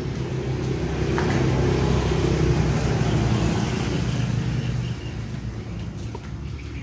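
A motor vehicle engine running, growing slightly louder and then fading after about five seconds.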